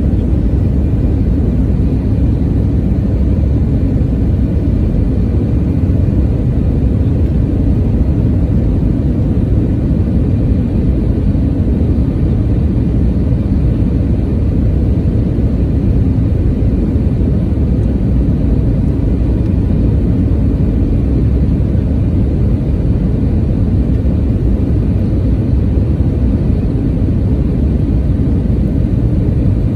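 Steady low roar of a Thai Smile Airbus A320's jet engine and the airflow over the airframe, heard from inside the cabin beside the wing.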